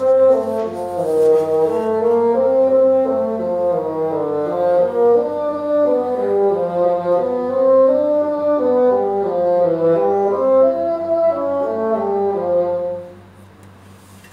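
Solo bassoon playing a flowing passage of quick notes in one melodic line, stopping about a second before the end.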